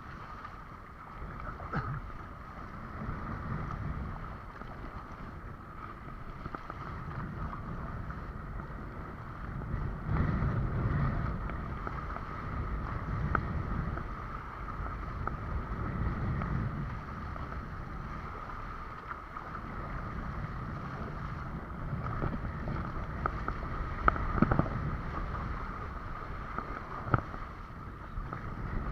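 A windsurf board moving over the sea: water rushing and slapping against the board in surges, with wind buffeting the microphone. A steady high whine runs underneath, and a few sharp knocks come, two of them near the end.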